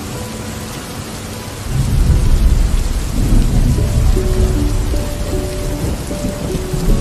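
Steady rain with a low rumble of thunder that swells in about two seconds in and keeps rolling, under soft, slow music with held notes.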